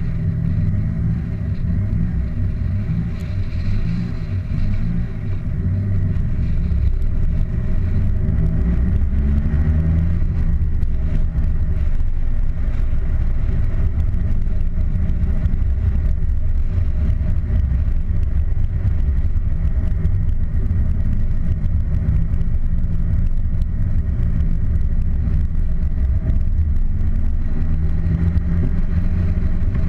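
Car engine and road rumble while driving, a steady low drone whose engine note rises and falls a few times as the car speeds up and eases off.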